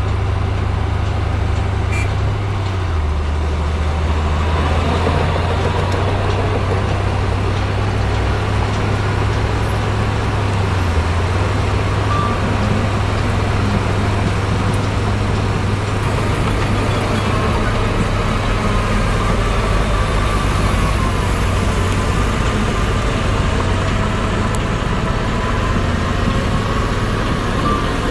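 Heavy diesel earthmoving machinery running steadily under load, the low engine note shifting a few times as the revs change.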